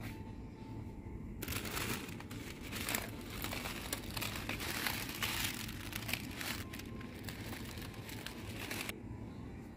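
Thin clear plastic clamshell food container crinkling and crackling as it is picked up and turned over in the hand. The crackling starts about a second and a half in and stops sharply about a second before the end.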